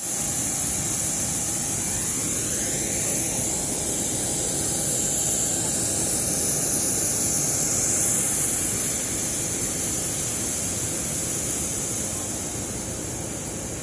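Steady whine and rush of a jet aircraft's turbine running on the apron, with a strong high hiss; it eases slightly near the end.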